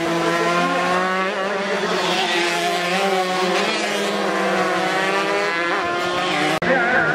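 Several tuned two-stroke Yamaha RX-King race motorcycles revving hard together as they pass through a corner, their overlapping engine notes drifting slightly in pitch. The sound briefly drops out about six and a half seconds in.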